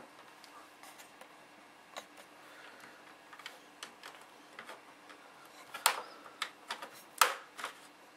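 Plastic snap clips of an HP G50 laptop's bezel clicking as the case is pried apart with a flat-head screwdriver: scattered faint ticks, with a few sharper snaps near the end.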